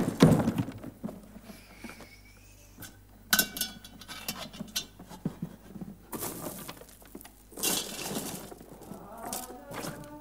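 Rummaging in a wooden chest: a loud knock right at the start, then clinking, jangling and rustling in several spells as metal pieces and strings of beads are scooped into a cloth sack.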